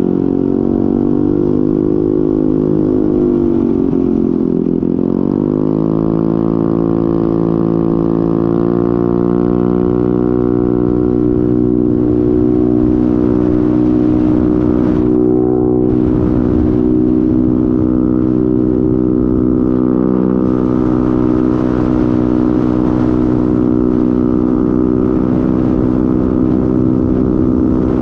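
Honda MetRuck scooter's engine pulling up an on-ramp and onto the freeway: its pitch sags briefly about four seconds in, climbs steadily for several seconds, then holds level at cruising speed. Wind rushes over the helmet-mounted camera.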